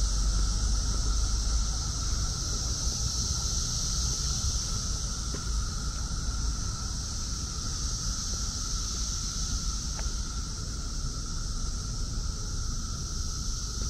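Dense chorus of Brood X periodical cicadas, a steady unbroken drone with a lower pitched band and a higher hissing band. Low wind rumble on the microphone runs underneath.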